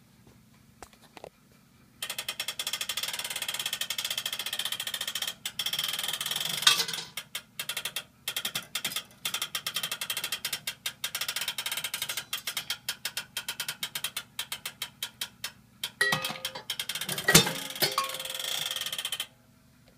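1931 U.S. Digger Mfg. Co. (Mutoscope) coin-operated crane digger running through its play cycle: its mechanism sets up a rapid, continuous ratcheting clatter about two seconds in while the crane and claw work over the bowl of prize capsules. A few louder clanks come through, one around seven seconds and several near the end, and the clatter stops abruptly shortly before the end.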